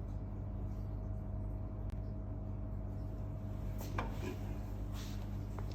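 Steady low machine hum with fixed tones, with a few light clicks and handling knocks about four seconds in.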